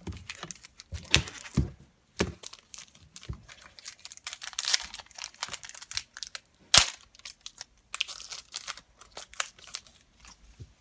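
Foil trading-card pack being torn open and crinkled, with cards shuffled and handled: irregular crackles and rustles, and a sharp snap about two-thirds of the way through.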